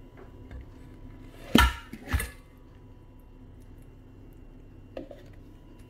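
Two sharp knocks about half a second apart, then a faint tap near the end, as a frozen block of cooked colocasia leaves is turned out of a plastic tub into a stainless steel bowl.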